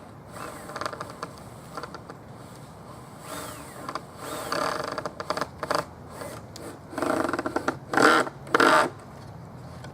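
Handheld power drill running in short bursts as it drives screws into a wooden birdhouse. The bursts come more often and get louder in the last few seconds, with the loudest two near the end.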